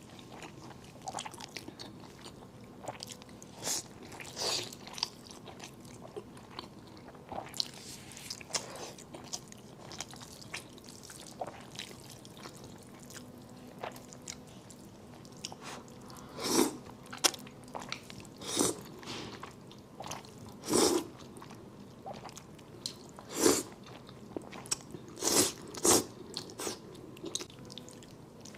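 Close-miked eating sounds of a person chewing fire chicken instant noodles, wet mouth noises and small bites. Louder bites or slurps come about every two seconds in the second half.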